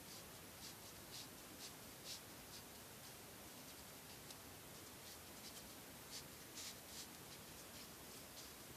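Near silence with a steady faint hiss and soft, irregular scratches of cords sliding through fingers and against each other as a decorative knot is worked and tightened.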